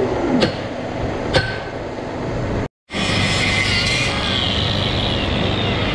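Two sharp metallic clanks about a second apart as steel barn headlock pipework is worked on. After a brief cut, a steady mechanical noise of the work going on.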